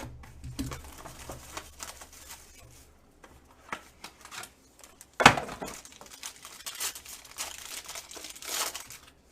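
Trading card box and pack being ripped open by hand: crinkling and rustling of packaging with scattered clicks, and a sharp tear about five seconds in, followed by more crinkling.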